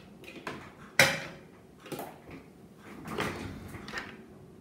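Objects handled on a table: a sharp tap about a second in, then a few softer rustles and knocks as a sheet of water-slide nail decals is picked up.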